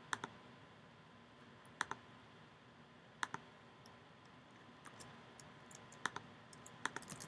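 Sparse mouse clicks and keyboard key presses on a computer, mostly single or paired clicks a second or so apart, with a quick run of clicks near the end.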